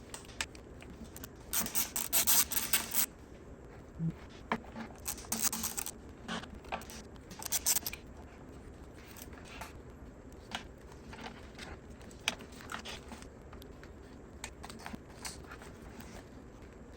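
Hand work on engine parts: three short bouts of scraping and rustling in the first half, amid scattered small clicks and knocks, as parts such as fuel injectors and wiring-harness clips are fitted.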